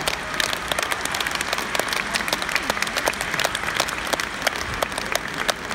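Audience applauding, with separate hand claps standing out in a steady patter.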